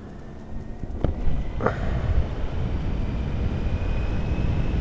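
Honda Hornet 900's inline-four engine pulling away and building speed, rising in level about a second in, with two brief clicks and a faint, slowly rising whine over a low rumble.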